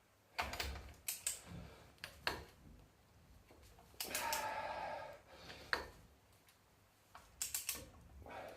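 Clicks and knocks of tools on metal, with a grinding creak lasting about a second, about four seconds in: the differential pinion nut being tightened with a torque wrench to crush the crush washer.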